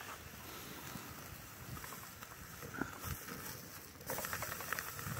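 Faint crackling and hiss of a small wood fire burning under a portable grill, with scattered light clicks. The hiss and crackle grow louder about four seconds in.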